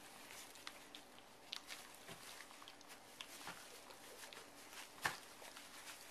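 Faint rustling and crackling of shredded paper bedding under English bulldog puppies' paws as they move about, with scattered small clicks and one sharper click about five seconds in.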